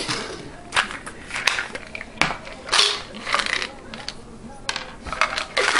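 A series of sharp clicks and short clatters from handling supplement containers: a plastic bottle cap coming off and capsules rattling in the white plastic pill bottle as one is tipped out.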